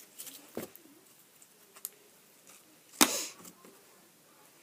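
Handling noises from a plastic slime container: a few faint clicks and taps, with one sharp clack about three seconds in.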